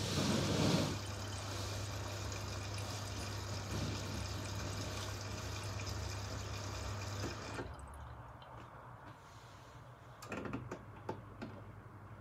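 Miele W2573 front-loading washing machine filling: water jets into the drum through the door-top inlet as a steady rush with a low hum, then cuts off suddenly about seven and a half seconds in. After that come a few soft knocks and splashes as the wet cloths in the drum settle.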